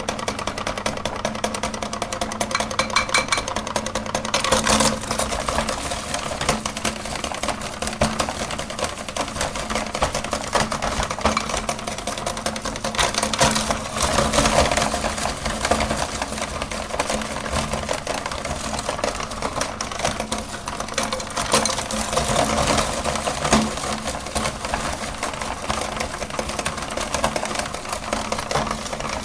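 Electric meat grinder running with a steady motor hum while its auger crushes hard-candy lollipops, giving a dense, continuous crunching and crackling that grows heavier in places.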